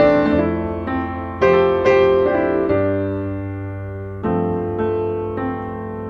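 Piano background music: notes and chords struck every half second or so and left to ring out over held bass notes.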